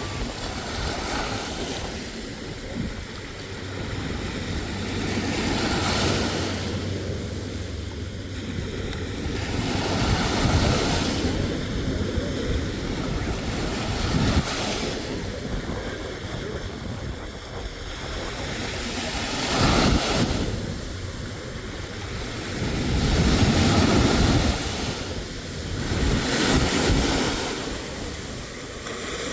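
Surf washing onto a sandy beach, the noise swelling and falling back every few seconds as waves come in, with wind buffeting the microphone.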